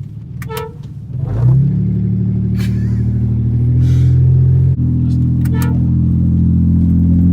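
Aftermarket air horns on a Dodge Dakota sounding a long, loud, steady chord of several low tones. The chord starts about a second in with a short upward slide. It breaks off for an instant a little past halfway, then sounds on slightly higher.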